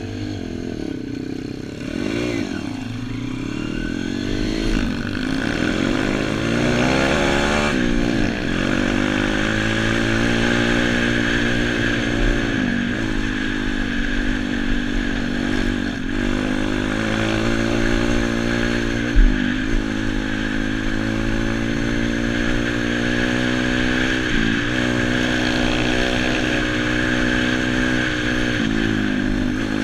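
YX pit bike's four-stroke engine pulling away and accelerating through the gears: its pitch climbs and drops back several times over the first eight seconds or so, then runs on at a steady pace with short dips when the throttle is eased. A single sharp knock about nineteen seconds in.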